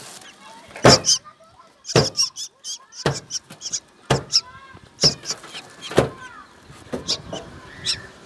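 Black drongo nestlings giving harsh, high begging chirps, a call or short cluster about once a second: hungry chicks calling for food.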